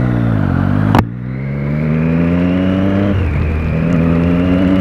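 Triumph Speed Triple 1050's three-cylinder engine under way: the revs fall, a sharp click comes about a second in, then the engine pulls up steadily in one gear, dips briefly at an upshift, and climbs again.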